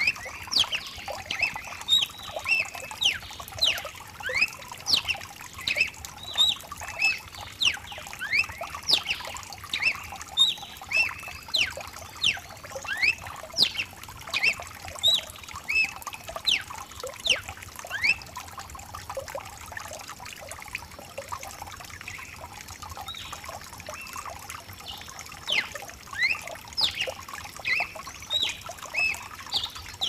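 A Brazilian cardinal (cardeal, Paroaria) singing a rapid run of short, sharp whistled notes over the steady hiss of rain. The song pauses for several seconds about two-thirds of the way through, leaving only the rain, then starts again.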